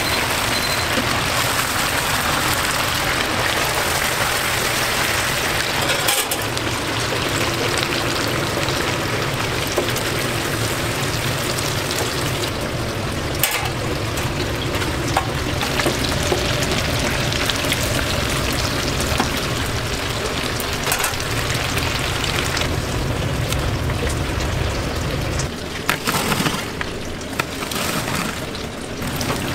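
Hot oil sizzling steadily as battered chicken pieces deep-fry, over a steady low rumble, with a few sharp clicks. The sound changes abruptly a few times, and the rumble drops out near the end.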